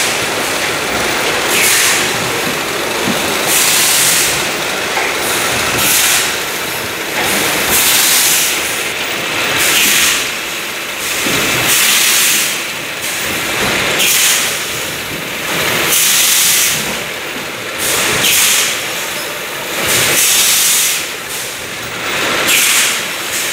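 Cup-sealing packaging line running, its conveyors and machinery giving a steady mechanical noise, with a burst of hiss repeating about every two seconds as the machine cycles.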